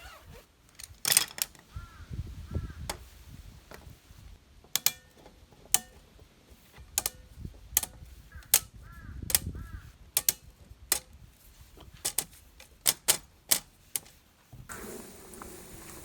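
Irregular sharp clicks and knocks, with a crow cawing faintly twice early on and three times about halfway through.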